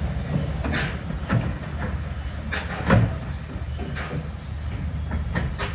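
Narrow-gauge railway train standing at the station: a steady low rumble with irregular clanks and knocks, the loudest a heavy knock about three seconds in.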